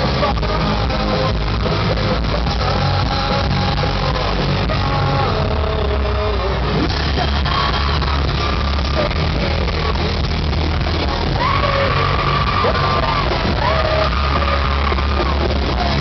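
Pop-punk band playing live in an arena: loud rock music with electric guitar, drums and heavy bass under a lead voice singing, with long held sung notes in the second half.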